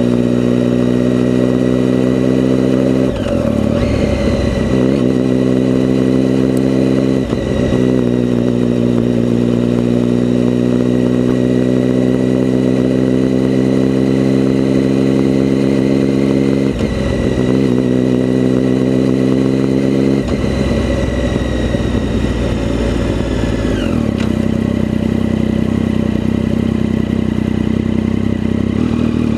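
A vehicle engine running at a steady speed, its note breaking off briefly several times and settling at a different pitch near the end, with a faint high whine over it.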